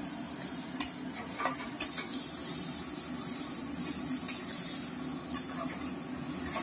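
Food sizzling as it fries in hot oil in a pan, stirred with a spatula that knocks and scrapes against the pan about half a dozen times.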